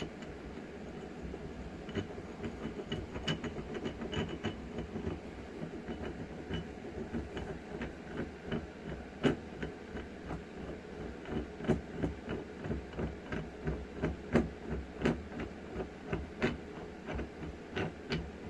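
Repeated short knocks and clicks of metal jack parts being worked by hand, irregular at about one to three a second and getting louder in the second half, over a steady low hum.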